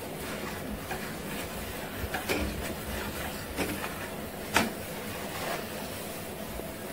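Spatula scraping against a metal pan while thick jackfruit pulp is stirred and cooked down, with a few separate scrapes a second or so apart over a steady low hiss.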